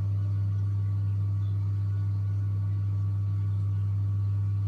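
Steady low hum of a reef aquarium's sump equipment running, with the Jecod DC return pump pumping.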